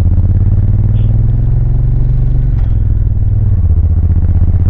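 2000 Suzuki VL1500 Intruder LC V-twin engine running under way on the road, a loud steady rumble. Its pitch edges up, then drops and changes about two and a half seconds in.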